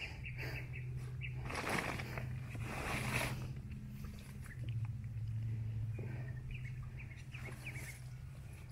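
Hands digging and scooping through wet mud and shallow muddy water to work a mud crab out of its burrow, the noisiest stretch of wet scooping about two to three seconds in.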